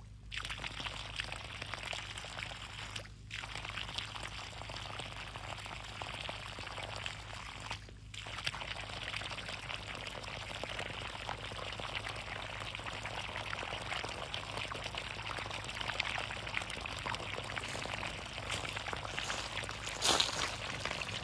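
Water gushing from the open end of a black poly hose and splashing onto dry leaf litter as the line is flushed out. The rush starts just after the beginning, cuts out briefly twice in the first eight seconds, then runs steadily, with a short louder burst near the end.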